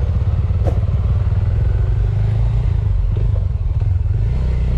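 Small Suzuki motorcycle's engine running steadily while riding, with a single sharp click about a second in.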